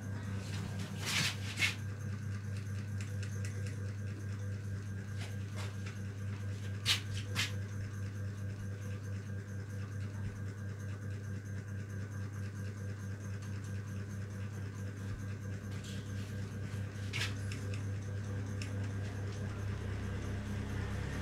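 Hands massaging a man's neck and shoulders, with a few short sharp hand taps over a steady low hum.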